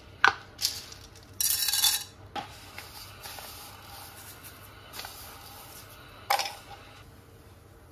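Small seeds poured from a glass jar into a nonstick wok of hot oil, a short rattling rush about a second and a half in, with several sharp clinks of the jar against the pan before and after.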